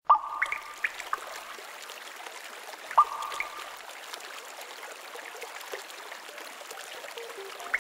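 Water drops plinking into still water over a steady trickle of running water. Two sharp drips, each with a short ringing tone, fall about three seconds apart, with a few smaller drips in the first second.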